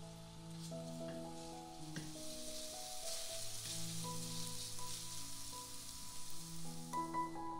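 Minced garlic sizzling in oil in a nonstick frying pan over medium heat as a silicone spatula stirs it, the sizzle strongest in the middle. Soft background music plays underneath.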